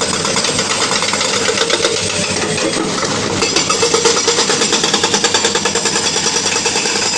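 Excavator's hydraulic breaker hammer pounding rapidly and steadily over a running engine.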